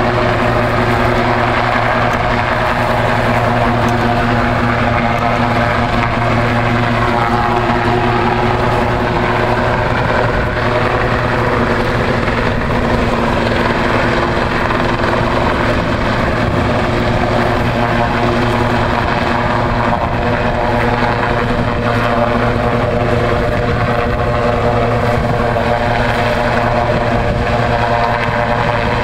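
A search-and-rescue helicopter running low over the sea, its rotor and engines giving a loud, steady drone that does not change.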